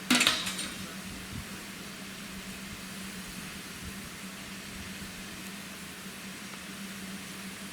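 Standing steam locomotive hissing steadily under a low, even hum, after a sharp metallic clank at the very start.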